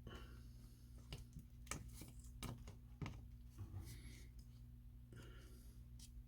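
Faint, scattered clicks and brief rubbing sounds from small plastic model parts being handled and pressed together while glued, over a steady low electrical hum.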